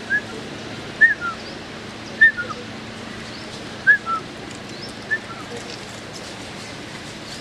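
A bird calling in short chirp phrases, each a quick rising-and-falling note followed by a lower falling one, repeated about five times a second or so apart and stopping after about five seconds.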